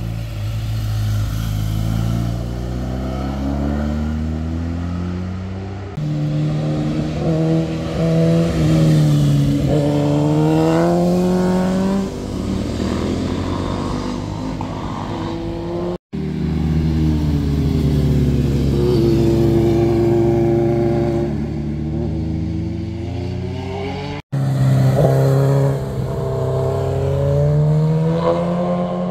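Motorcycle engines passing through a hairpin bend, one bike after another: each engine's pitch falls as it rolls off into the turn, then climbs as it accelerates out. The sound cuts abruptly between bikes three times.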